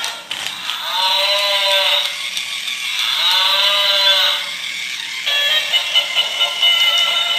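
Battery-operated toy buffalo with a herd-boy rider playing two recorded animal calls from its speaker, each about a second long and rising then falling in pitch, over the ratcheting of its gear mechanism. About five seconds in, music starts again.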